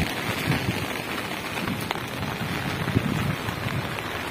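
Steady rushing noise of muddy floodwater from a swollen river surging over and past a concrete road causeway, mixed with falling rain.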